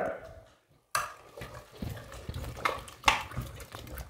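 A spoon stirring chopped vegetables, water and spice powders in an aluminium pressure cooker, with soft scrapes and a few clinks of the spoon against the pot. The stirring starts about a second in.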